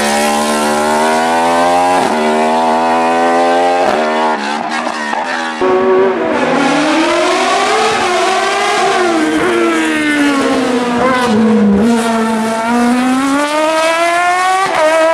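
Sports prototype race car engines at high revs on a hill climb. The first car accelerates hard, rising in pitch, with quick breaks for gear changes; after a sudden change about five and a half seconds in, a second car's engine falls and wavers as it slows through a tight bend, then rises again as it accelerates away near the end.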